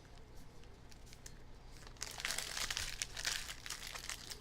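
Plastic trading-card pack wrappers crinkling as packs are torn open and emptied: faint crackles at first, then louder crinkling for about two seconds from the middle on.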